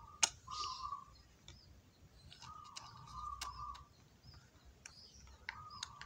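Zebra dove (perkutut) chick begging while being hand-fed: three drawn-out squeaky calls held at one pitch, with a few sharp clicks in between.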